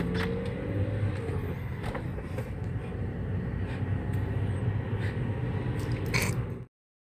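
Steady road and engine rumble heard from inside a car as it drives along, with a few light clicks and knocks. The sound cuts off suddenly near the end.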